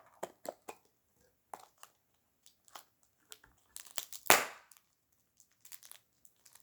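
Plastic packaging crinkling and crackling as it is handled: a run of short, sharp crackles with one louder, longer crunch a little past four seconds in.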